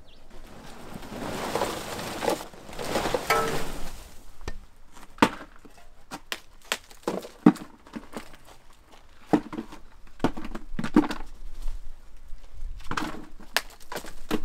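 A rustling rush for the first few seconds, then a long, irregular string of sharp knocks and clinks: hard lumps of solid fuel being broken off a pile and tossed into a plastic bucket.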